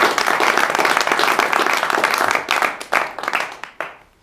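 Audience applauding, dense clapping that thins out over the last second and a half into a few separate claps and fades away.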